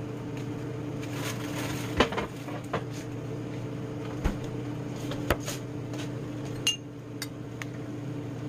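Forks and dishes clinking and knocking about eight times at irregular moments, the loudest about two seconds in, as a bowl of chopped vegetables is tossed with two forks. A steady low hum runs underneath.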